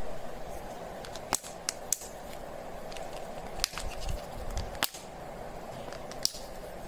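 Sharp clicks and crackles of a Double Fun plastic candy egg being handled as a thumbnail picks at and peels its sealed lid, about six separate snaps spread through, over a steady background hum.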